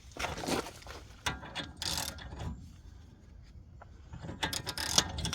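Ratchet wrench clicking in short runs as it works a hub puller, with a quieter pause in the middle and a quick run of clicks near the end.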